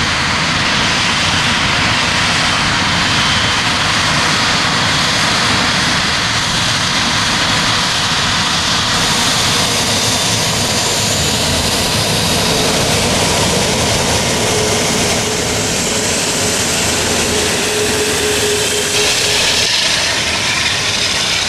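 Airbus A380-841's four Rolls-Royce Trent 970 turbofans running at taxi power as the jet passes close by: a loud, steady rush of jet noise with a faint high whine.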